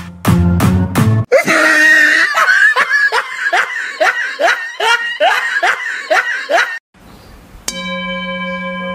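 Beat-driven music briefly, then a person laughing hard in quick repeated bursts, about three a second, for around five seconds. After a short gap, a steady electronic-sounding tone starts near the end.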